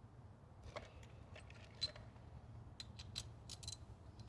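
Faint, scattered metallic clicks and ticks of small hand tools and metal parts being handled during spark plug and ignition coil work, with a low steady hum underneath.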